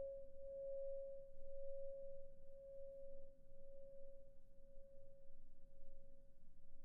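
A faint single sustained pure tone, slowly fading, with a fainter higher overtone that dies away about a second in.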